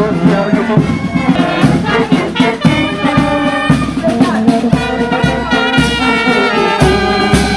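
Marching brass band playing a march, with euphoniums, trumpets and clarinets over a steady beat.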